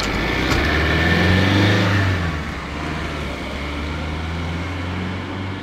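Van engine pulling away and accelerating past close by, loudest in the first two seconds, then quieter as the van drives off down the street.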